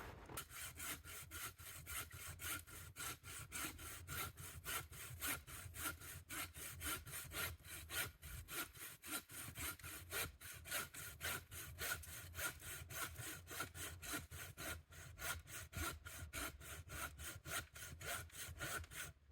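Handsaw cutting through the trunk of a fallen tree, in steady, quick back-and-forth strokes that stop just before the end.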